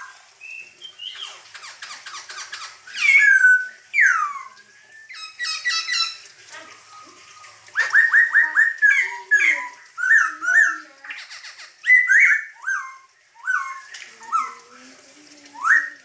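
Black-throated laughingthrush singing a loud, varied song of whistled notes and rising glides, with quick runs of repeated notes and harsh rattling chatter between the phrases.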